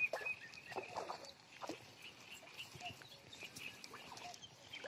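Faint bird calls: short high chirps that come again every second or two over a quiet background, with a few light clicks.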